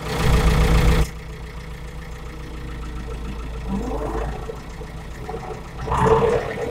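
David Brown 1490 tractor's four-cylinder diesel engine running, heard from inside the cab while driving. A loud noisy rush fills the first second, then a steady engine hum, with a short rising whine about four seconds in and a louder swell near the end.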